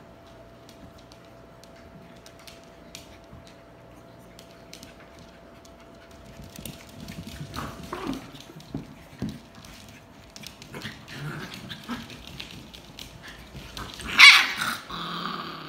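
Puppies playing on a hard floor, with scuffling and small clicks. Near the end comes one loud, high-pitched bark.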